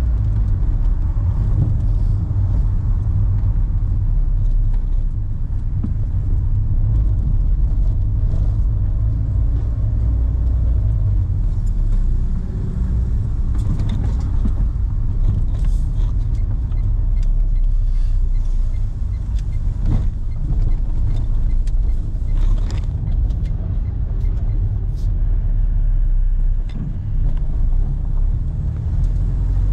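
A 2011 Renault car driving, a steady low rumble of engine and road noise, with a few short clicks or knocks in the middle.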